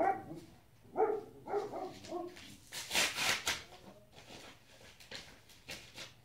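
Infant babbling: a run of short vocal sounds about one to two seconds in, then a breathy rush of noise around three seconds in.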